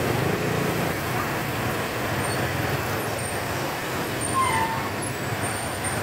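Traffic noise from a jam of trucks, a bus and cars idling and creeping up a steep hill road: a steady low engine hum.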